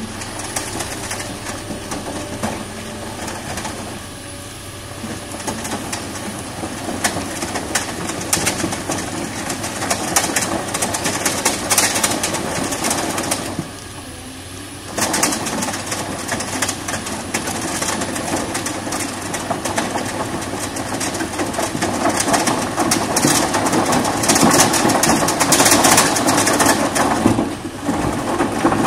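Caterpillar 329D excavator running with a screening bucket turning on its arm, sifting soil, with a steady rattle and clatter of earth and stones falling through. The noise drops off briefly about halfway through and again just before the end, then picks up again.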